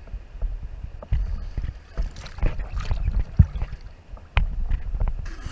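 River water sloshing and splashing against a swamped, capsized canoe, heard from right at the waterline, with irregular low surges and scattered knocks against the hull and gear.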